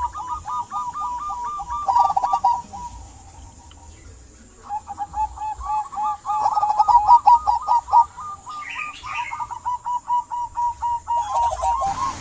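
Zebra doves (perkutut) cooing: rapid runs of short, stuttering coo notes, with a lull of about two seconds after the first run before the cooing resumes.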